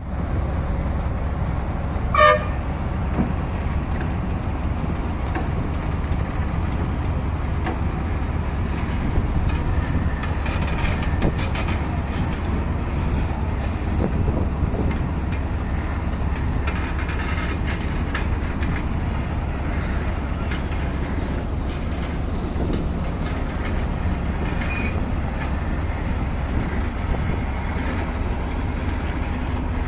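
Heavy construction machinery running with a steady low rumble, and a short horn toot about two seconds in.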